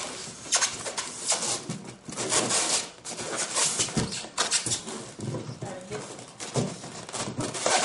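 Irregular rubbing, scraping and knocking of a large cardboard box lid being tugged at and shifted on a table. The lid won't come off because tape holds it down.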